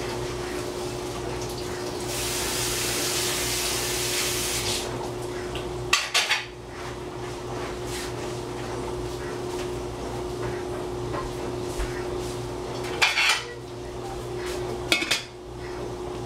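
Washing up at a kitchen sink: tap water runs for a couple of seconds, then metal pots and utensils clink and clatter in a few short pairs, over a steady low hum.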